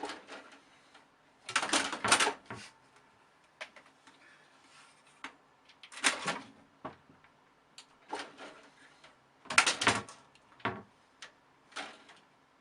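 Irregular knocking and clattering: a few short bursts of rattling noise several seconds apart, with scattered single clicks between them.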